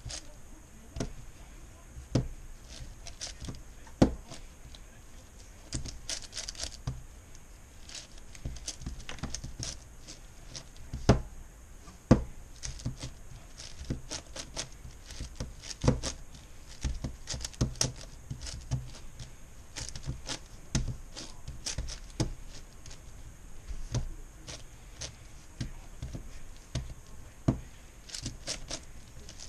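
A MoYu Meilong 10x10x10 plastic puzzle cube being turned one-handed while its centers are built: a busy, irregular run of clicks and clacks from the layer turns, several a second, with a few louder knocks.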